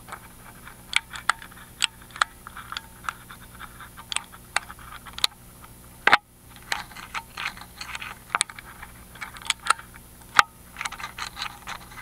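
Lock pick clicking and scraping against the spooled magnetic pins inside a Miwa EC cylinder lock under tension, heard through a microphone fixed to the lock body; a run of small irregular clicks, with a sharper, louder click about six seconds in and another near ten seconds, as the pick probes for pin 2.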